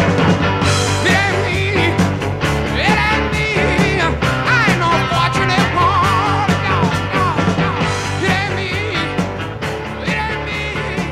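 Rock music with a singing voice and guitar over a steady beat.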